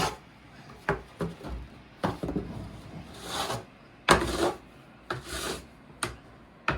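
Snow shovel scraping and cutting into heavy, wet snow, a series of irregular rasping strokes, some starting with a sharp scrape.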